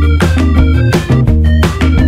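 Loud background music with a steady beat and a strong bass line.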